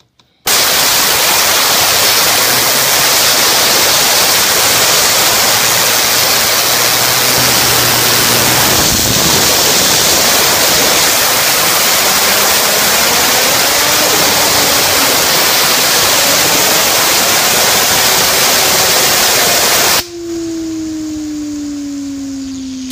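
Compressed air from an air compressor hissing loudly onto a fidget spinner, the spinner's whir rising in pitch as the air drives it faster. The air cuts off suddenly near the end, leaving the spinner whirring freely with a slowly falling pitch as it begins to spin down.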